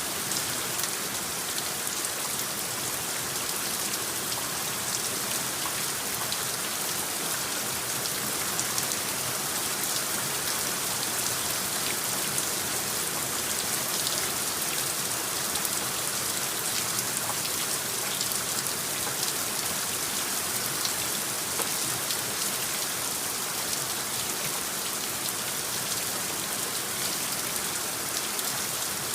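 Steady rain, added as a rain soundscape: an even, dense hiss with scattered faint drop ticks throughout.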